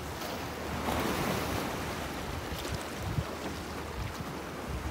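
Sea water lapping and sloshing, with wind rumbling on the microphone.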